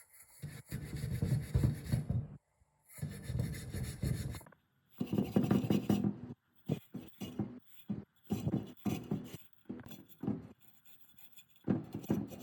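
Scraping strokes worked by hand on a part: three long strokes of about a second and a half each, then a run of shorter, quicker ones.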